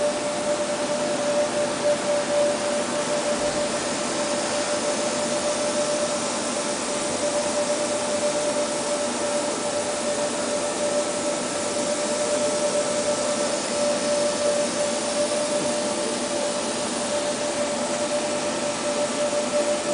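Steady hum and hiss of running machinery in a machine shop, with a constant mid-pitched whine over it.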